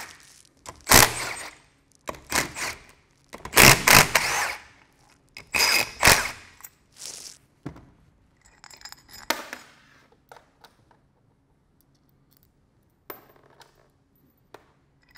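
Cordless impact driver with a 9/16 socket, run in about six short bursts over the first seven seconds as it backs out the bolts holding the top cap on a sandblast metering valve. Lighter metallic clinks and knocks follow as the loosened bolts and parts are handled.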